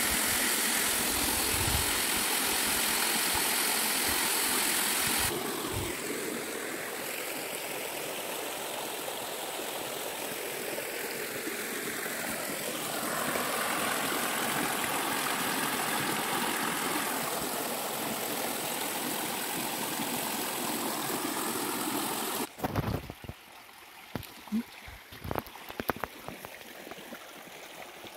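Stream water rushing, a steady hiss whose character shifts abruptly a few times. About 22 seconds in it drops suddenly to a much quieter background with a few scattered knocks.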